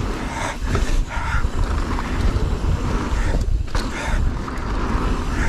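Wind rushing over the microphone and the rattle and knocks of a mountain bike riding fast downhill over rough trail with roots and rocks. The noise briefly drops out a little past halfway, then a knock.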